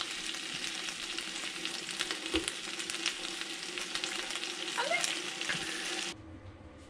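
Food sizzling and crackling in a hot frying pan, with stirring, until it cuts off abruptly about six seconds in.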